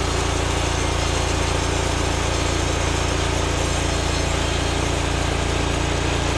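Norwood MX34 portable bandsaw mill running steadily, its engine driving the band blade as it saws through a log.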